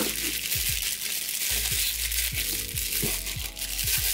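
Packing material in a cardboard box crinkling and crunching as hands rummage through it, over lofi background music with a repeating low bass beat.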